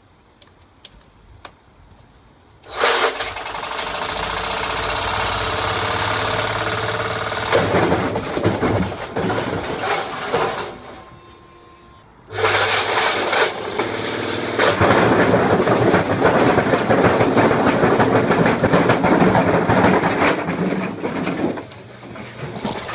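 Hoover HSPF167 front-loading washing machine running hard, with loud, dense mechanical rattling over a steady motor hum. It starts suddenly a few seconds in, dies down, cuts back in suddenly about halfway through, and eases off near the end.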